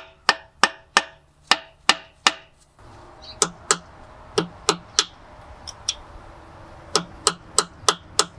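Hand hammer striking the Eaton RS-404 rear differential carrier (the 'pumpkin') of a Kenworth W900 to knock it loose from the axle housing: sharp blows about three a second with a short ring after the early ones, a pause about two and a half seconds in, then the blows resume.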